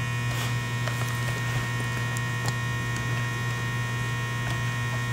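Steady electrical mains hum with a few faint light ticks.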